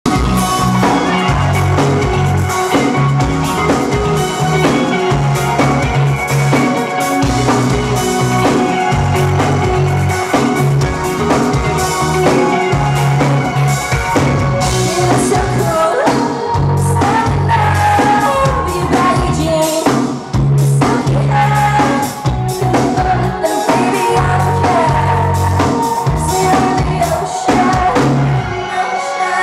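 Loud live band performance: electric guitars over a steady driving drum beat, with a woman singing.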